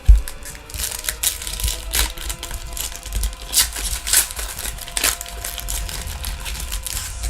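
A thump, then irregular crinkling and crackling of a plastic trading-card pack wrapper being torn open and handled.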